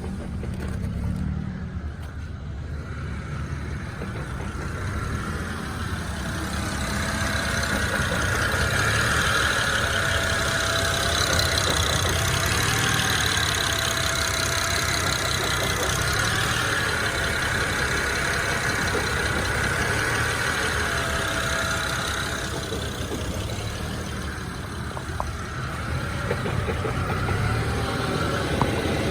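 BMW E90 engine idling roughly in neutral with the clutch pedal released, with an intermittent clacking from low in the car that comes only when the clutch is not pressed. The owner, whose engine is also misfiring, hears it as a mystery: some have suggested a throwout bearing, which he doubts.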